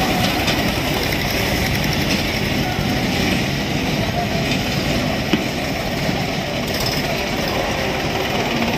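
Mahindra tractor's diesel engine running steadily as the tractor rolls down steel loading ramps off a flatbed truck. One sharp knock comes about five seconds in.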